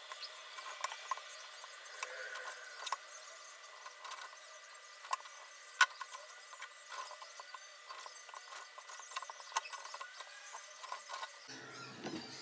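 Kitchen knife cutting the crusts off slices of white bread on a bamboo cutting board: irregular crunches and light knocks of the blade on the wood, with one sharper knock about halfway through. The sound is thin, with no low end.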